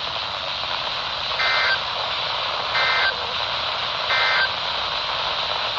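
A NOAA Weather Radio end-of-message signal heard through a RadioShack 12-254 weather radio's speaker. It is three short, evenly spaced buzzy bursts of EAS/SAME digital data tones, about a second and a half apart, and they mark the end of the warning broadcast. Steady weak-signal static hiss runs underneath.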